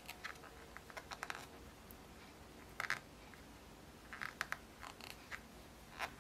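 Faint, irregular scratching and clicking of a crochet hook working yarn through stitches, in small clusters a second or two apart.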